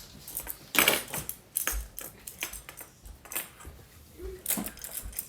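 Magnetic building blocks clacking and clattering against each other as they are handled, with a louder clatter about a second in.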